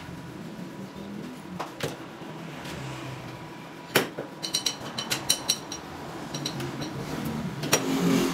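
Stainless steel tube and plate pieces knocking and clinking as they are handled and set down on a workbench. A sharp knock comes about four seconds in, then a quick run of small ringing clinks, with a few more near the end, over a faint steady hum.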